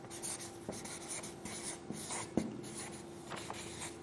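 Marker pen writing on flip-chart paper: a run of short, irregular scratching strokes, over a faint steady hum.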